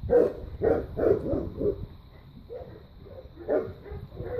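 Landseer puppies barking at play: a quick run of about five short barks in the first two seconds, the first the loudest, then a few softer barks.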